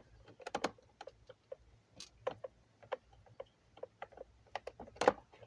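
Irregular light clicks and taps of a screwdriver and plastic fan housing parts being handled and unscrewed, with a sharper click about five seconds in.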